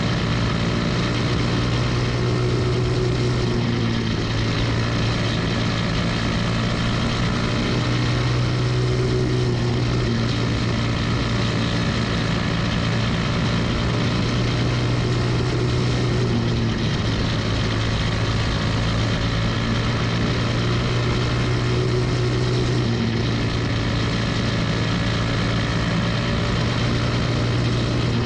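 Single-cylinder four-stroke Briggs & Stratton Animal kart engine running hard under race speed, heard from onboard the caged dirt champ kart; its note shifts about every six seconds as the kart goes round the oval.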